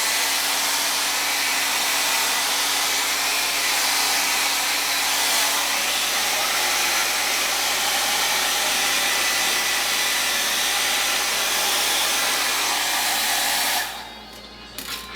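Revlon hair blow dryer running steadily, blowing air as long hair is dried. It is switched off near the end, and the noise drops away suddenly.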